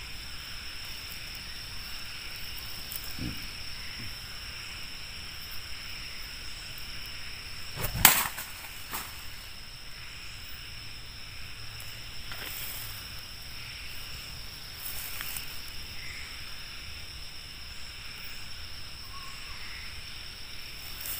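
Night-time insect chorus: a steady high-pitched buzzing of crickets. About eight seconds in comes a single sharp knock, much louder than the rest, and there are a few fainter clicks and rustles.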